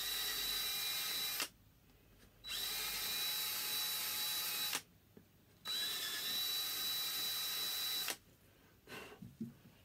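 Cordless drill boring holes in a wooden board in three runs of about two seconds each, each with a steady high motor whine and short silent pauses between. The drill's battery is running low. A few light knocks of handling come near the end.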